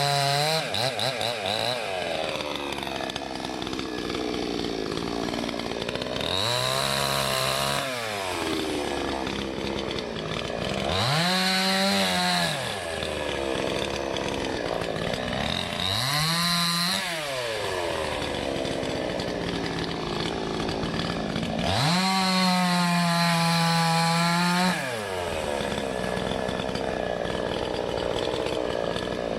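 Salem Master two-stroke gas chainsaw running, dropping off high speed at the start, then revved up to full speed four times and falling back to a low run between. The longest full-throttle stretch comes near the end.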